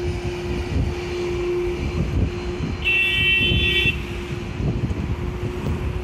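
Strong wind buffeting the microphone over a steady low hum, with a vehicle horn sounding once for about a second midway.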